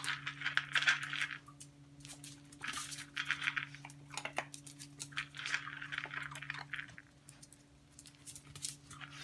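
A dog sniffing and snuffling at a tile floor in several bouts, with sharp clicks from its claws and movements on the tiles. A steady low hum runs underneath.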